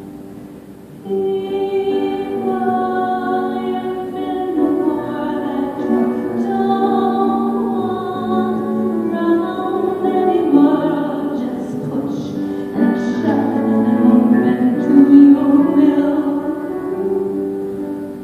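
A woman singing a slow ballad live, accompanied by a grand piano; the music comes in strongly about a second in after a quiet pause.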